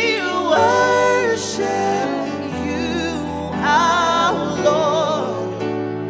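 Three singers, a man and two women, singing a slow worship song into microphones over sustained accompaniment chords, with long held notes that waver with vibrato.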